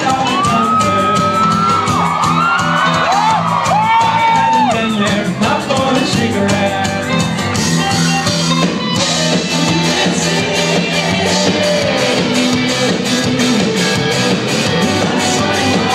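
Indie rock band playing live through a venue PA, heard from the crowd on a phone: driving drums and cymbals, electric guitars, bass and a sung vocal line. The cymbal beat stops for about a second around eight seconds in, then comes back.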